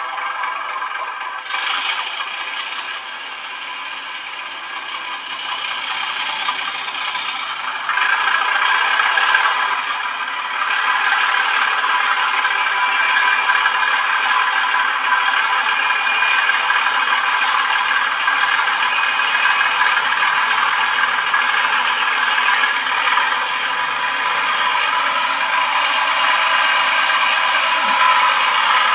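Model-railway DCC sound decoder (LokSound v5 Class 37 sound) playing a Class 37 diesel engine through the model's small speaker. The engine sound steps up in level a few times, most sharply about eight seconds in, then runs steadily.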